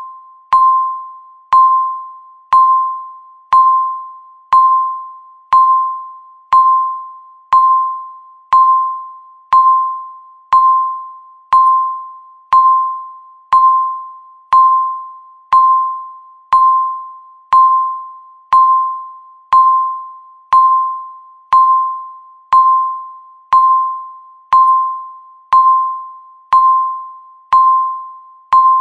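Countdown timer beeping once a second: a single electronic tone, struck sharply and fading away before the next beep.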